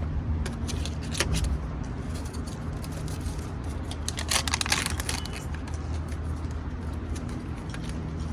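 A vehicle engine idling steadily, with scattered light metallic clinks and rattles, a short cluster of them about four to five seconds in.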